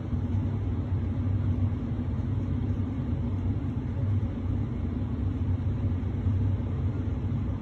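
Steady low mechanical hum, even throughout with no clicks or changes.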